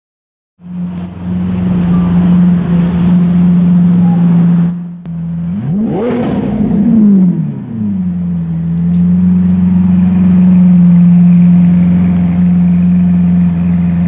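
DMC-tuned Lamborghini Aventador LP900-4's V12 running loud and steady at idle, cutting in just after the start. About six seconds in it revs once, the pitch rising and falling back over about two seconds before settling to idle again.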